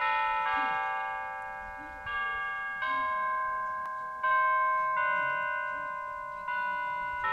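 The tuned bells of the Madonna della Corona sanctuary's carillon (glockenspiel) in its bell tower playing a slow melody, with six struck notes at uneven intervals, each ringing on under the next.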